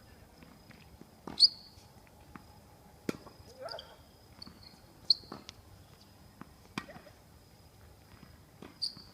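Tennis ball struck back and forth by rackets in a rally, five sharp hits about two seconds apart, the nearer ones louder and with a short ringing after them.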